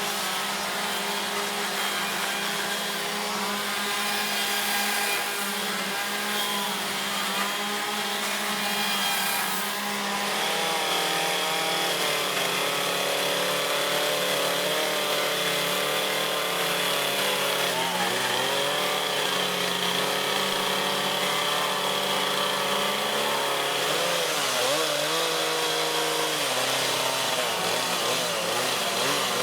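Several chainsaws running at once while carving wood. Their engine notes overlap, each rising and falling in pitch as the saws cut and rev, and the sound grows a little louder about a third of the way in.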